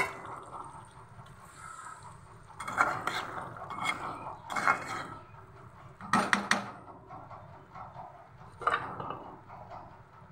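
Metal ladle stirring chicken curry in a metal kadai, scraping and clinking against the pan in about five short bouts.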